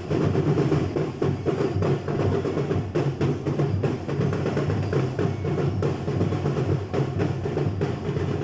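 Parade drum band playing: snare and bass drums beating a dense, steady marching rhythm.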